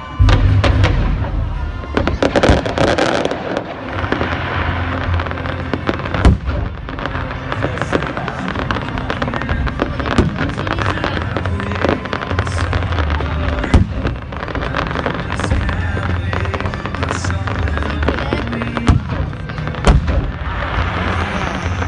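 Fireworks display: many shells bursting in quick succession, with sharp bangs throughout, over background music.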